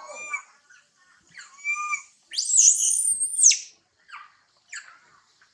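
Baby macaque's distress calls: short whimpering cries, then a loud, shrill, wavering scream about two seconds in lasting about a second, then two brief faint squeaks.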